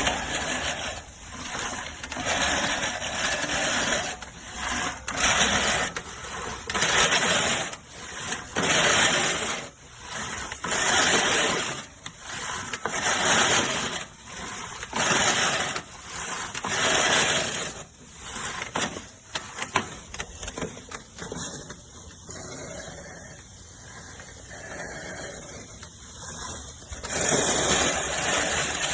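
Manual push reel lawn mower cutting grass, its spinning blades whirring in repeated surges about every two seconds as it is pushed back and forth, going quieter about two-thirds of the way through and picking up again near the end.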